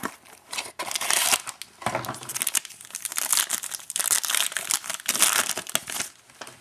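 Foil trading-card pack crinkling in an irregular run of crackles as it is handled and torn open by hand.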